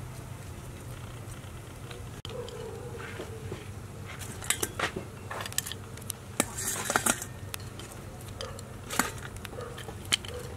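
Metal tongs and fried frogs handled on a plate: scattered clicks and clinks, thickest in the middle, over a steady low hum.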